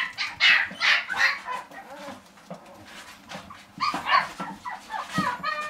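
Puppies yapping: several sharp barks in the first second and a half, then, after a lull, a quick run of short high yips near the end.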